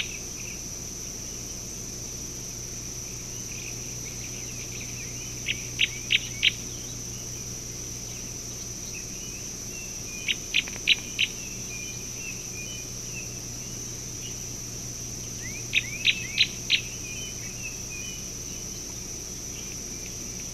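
A steady, high insect chorus. Over it a bird calls in quick bursts of four sharp notes, about every five seconds, with softer chirps in between.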